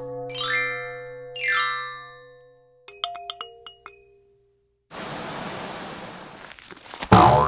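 Cartoon sound effects: two falling-pitch glides, then a quick run of short bright dings, a brief pause, and a steady hiss of noise for about two seconds, ending with a loud hit near the end.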